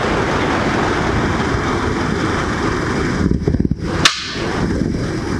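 A servo drive motor and the DC generator it turns run with a steady machine noise. About four seconds in there is one sharp click as a control on the training panel is switched.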